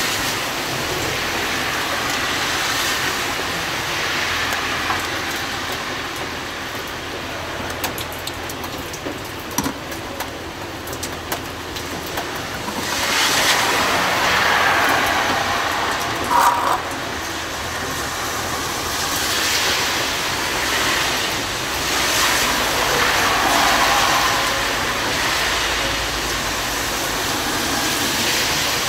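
Road traffic passing, swelling and fading several times over a steady background of outdoor noise. A few light clicks come in the quieter stretch.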